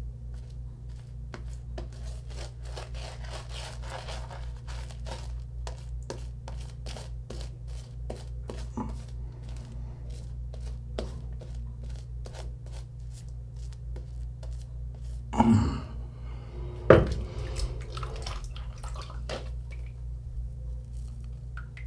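Shaving brush working Proraso Green shaving-cream lather over a wet face: a quick run of short, squishy brush strokes over a steady low hum. Two short, louder sounds come near the end.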